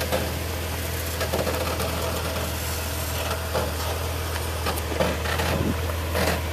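Jeep rock crawler's engine running steadily at low revs as it crawls over a rock ledge, with a few faint knocks.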